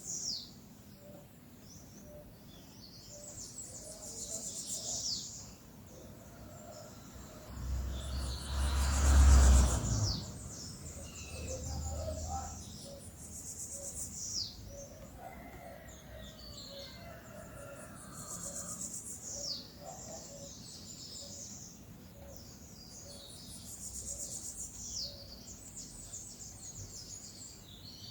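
Outdoor birdsong with insects: high-pitched calls repeat about every five seconds, each ending in a quick falling sweep, over fainter lower notes. About eight seconds in comes a brief, loud, low rumbling whoosh that lasts about two seconds.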